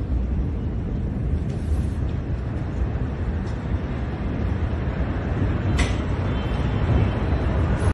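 Steady low rumbling noise with no sharp blast, broken by a few faint short clicks spread through.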